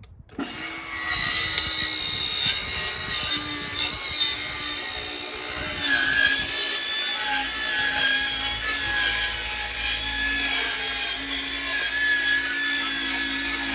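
Hand-held electric power saw cutting through a wooden board, its motor whining steadily with the pitch wavering under the load of the cut.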